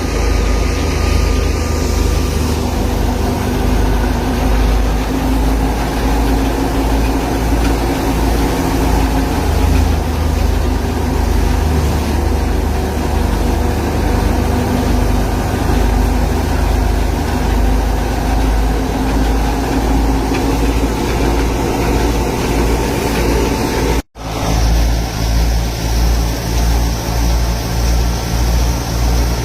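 Tractor engine running steadily while driving a wheat thresher, a loud continuous drone with a low pulsing hum. It cuts out for a split second near the end, then goes on as before.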